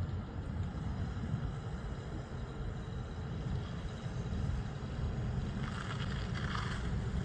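Low, steady rumble of a classic Plymouth 'Cuda's V8 engine as the car rolls forward at low speed.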